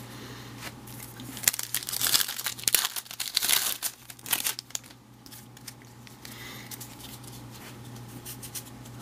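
Crinkling and tearing of a foil baseball card pack wrapper being opened, with the loudest bursts in the first half, then softer handling noise.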